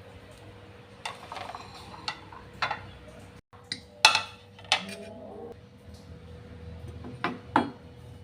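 Kitchen utensils and dishes clinking: a string of separate sharp clinks and knocks, the loudest about four seconds in and again near the end, over a faint steady hum.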